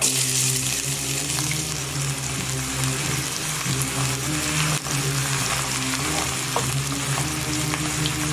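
Chopped onion dropped into hot oil and ghee in a pot, which starts sizzling at once and keeps frying steadily as it is stirred with a wooden spoon.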